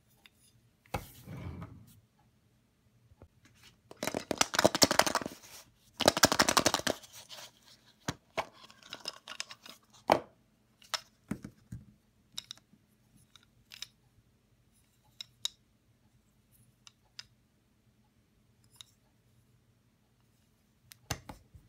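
Hands handling a small wooden toy train coach and a plastic surprise-egg shell: two runs of quick rattling a few seconds in, then scattered light clicks and taps.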